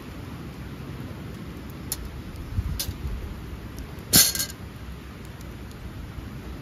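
A round wire grill grate set down on the ground with one short metal clatter about four seconds in. A wood fire crackles faintly in a small folding fire pit, with a few small pops, over a low steady rumble.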